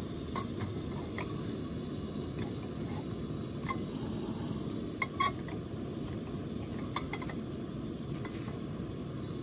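Canister backpacking stove burning steadily, while a metal frying pan clinks against its pot supports several times as it is set down and shifted, loudest in a quick pair about five seconds in.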